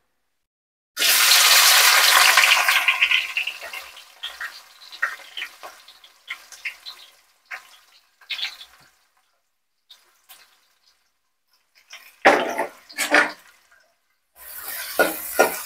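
Sliced onions dropped into hot oil in a steel pot: a loud sizzling rush about a second in that fades over a few seconds into scattered crackles. A few short scraping strokes near the end as the onions are stirred.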